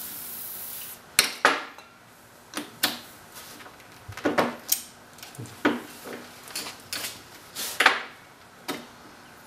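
Aerosol spray can hissing for about the first second, then a run of sharp metallic clicks and taps as a steel gear and a stuck thrust washer on a transmission shaft are worked with a screwdriver.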